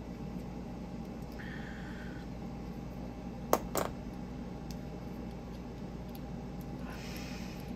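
Two small sharp metallic clicks about a third of a second apart, from the metal parts of a ratchet fidget coin being handled while it is taken apart, over a steady low background hum.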